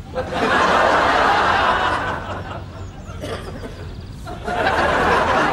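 Studio audience laughing in two waves. The first starts just after the beginning and lasts about two seconds; the second comes in about four and a half seconds in.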